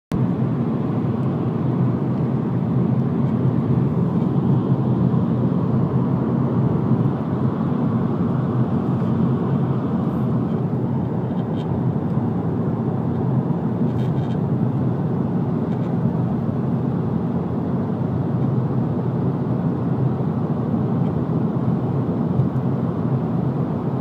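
Steady rumble of a BMW E92 3 Series heard from inside the cabin, with a few faint clicks partway through: a rattle from the driver's side front, around the A-pillar and front wing, whose cause the owner does not know.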